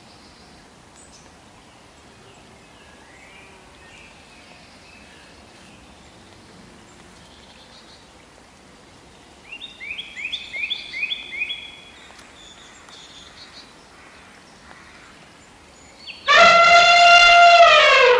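An African elephant trumpets loudly near the end, one long call of about two seconds that drops in pitch as it ends. Before it there is a quiet outdoor background, with a bird giving a quick run of about five chirps around the middle.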